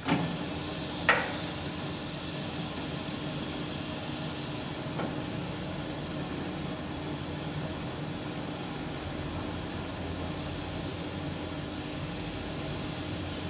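Horizontal metal-cutting band saw switching on and running steadily with a low hum, its blade on a round steel bar clamped in the vise. A sharp metallic clink rings out about a second in.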